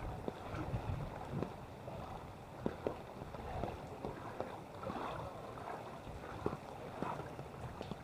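Footsteps wading through floodwater: irregular sloshing and splashing of water.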